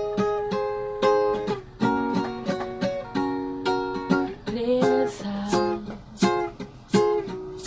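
Background music led by plucked strings: a quick, steady run of picked notes.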